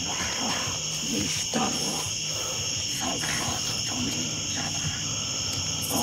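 Crickets chirring steadily in the night, with short low voice sounds coming and going over them.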